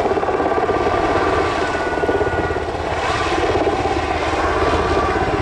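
Sikorsky UH-60 Black Hawk helicopter's twin turboshaft engines and rotor running steadily, with a rapid, even chop of the blades and a faint turbine whine.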